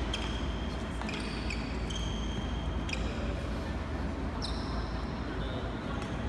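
Badminton doubles play: sports shoes squeak sharply on the court floor several times, with a couple of sharp racket hits on the shuttlecock about one and three seconds in, over a steady low hum.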